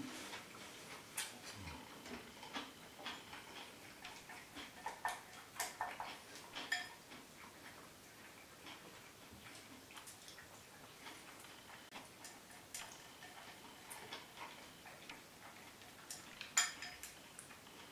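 Chopsticks tapping and scraping against a ceramic rice bowl during eating: faint, scattered clicks, with a short cluster near the end.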